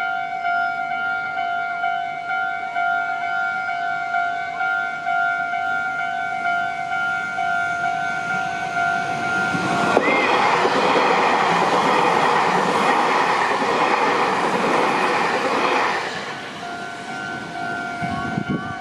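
Japanese level-crossing warning bell ringing steadily, then a Meitetsu Inuyama Line train passing through the crossing about ten seconds in, its rumble lasting about six seconds and drowning out the bell, which is heard again after the train has gone.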